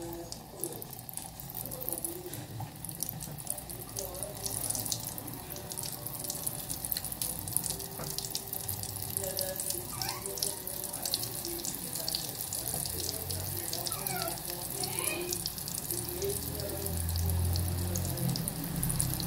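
Bolinho de chuva batter frying in hot oil: a steady, dense crackling sizzle of bubbling oil around the dough balls.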